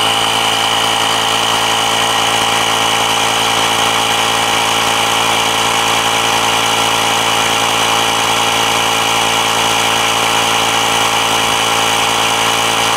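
Honda's 12 V tyre-inflator compressor from the Freed+ puncture repair kit running loud and steady, pumping air into a front tyre.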